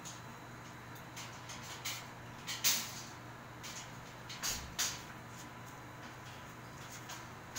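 Black metal wire-mesh dog cage panels knocking and rattling as they are fastened together by hand, in a few scattered sharp clanks, the loudest about two and a half seconds in and two close together near the five-second mark.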